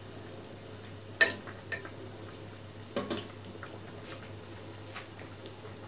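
Balushahi dough rounds sizzling gently in hot oil in a steel pot on low flame, with a few sharp clinks of the spatula against the pot: the loudest about a second in and another pair about three seconds in.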